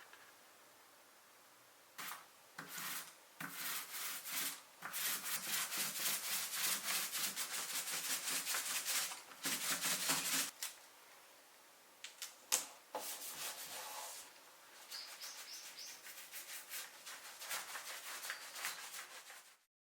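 Fast, repeated rubbing strokes against a surface, in two long spells with a few sharp clicks between them; the sound cuts off suddenly at the end.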